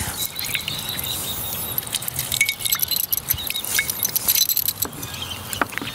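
A lemon half squeezed by hand over a glass bowl of marinade: wet squishing and juice dripping, with many small scattered clicks and crackles.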